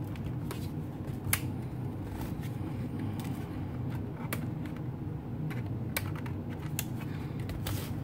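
Scattered plastic clicks and taps of hands working on the underside of a Dell Latitude E6530 laptop to free its battery, over a steady low hum.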